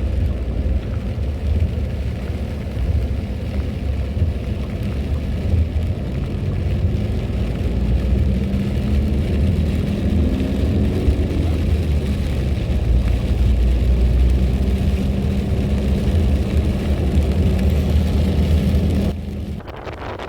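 A car running while driving: a steady low rumble of engine and road noise, with the engine note rising a little about halfway through. It falls away suddenly near the end.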